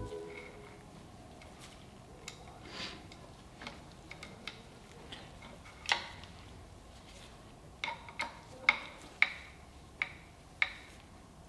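Scattered light clicks and taps, with a sharper knock about six seconds in and a run of six or so sharp clicks near the end, roughly two a second.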